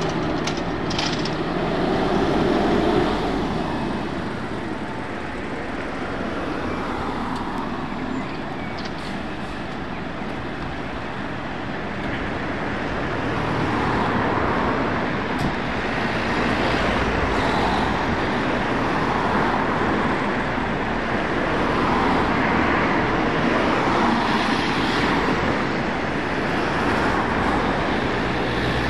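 Road traffic passing, with the diesel engine of a Scania P340 aerial ladder fire engine running as it rolls out of its station bay.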